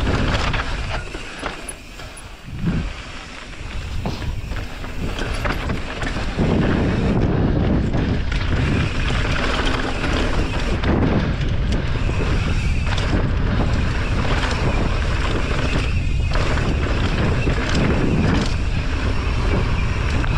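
Wind buffeting the microphone and tyre and trail rumble from a mountain bike riding down a dirt trail. It is quieter for a few seconds near the start, then steady and loud.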